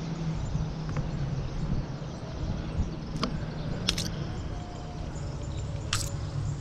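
Four sharp clicks or snaps, about one, three, four and six seconds in, over a steady low rumble.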